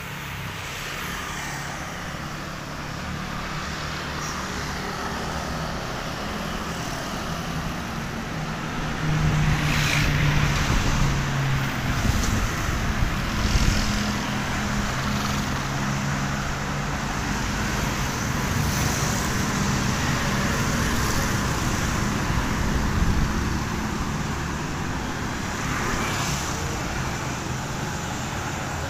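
Road traffic: motor vehicle engines running and cars passing, a steady low engine hum with road noise that gets louder about nine seconds in.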